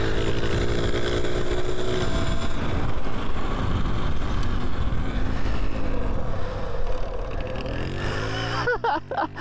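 Talaria electric dirt bike being ridden: the wind rushes over the microphone, with a steady hum from the bike in the first couple of seconds. A brief voice is heard near the end.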